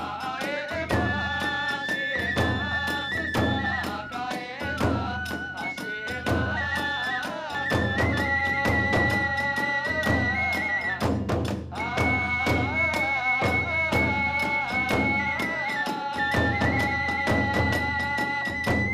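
Kagura hayashi music: a bamboo transverse flute plays a high, held melody over fast, steady drum strikes and clashing hand cymbals.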